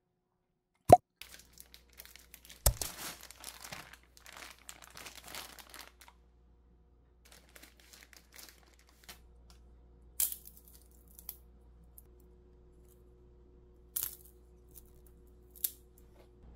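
A paper sleeve holding a bundle of wooden skewers rustling and tearing as the skewers are pulled out, with a few sharp clicks from the wooden skewers knocking together.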